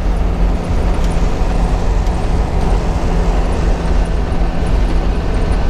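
A van's 6.2-litre Detroit diesel V8 cruising at highway speed, heard from inside the cab: a steady engine drone with constant road and wind noise.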